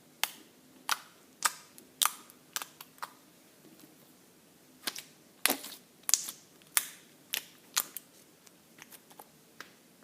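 Slime being pressed and poked, giving an irregular run of sharp pops and clicks, some in quick clusters.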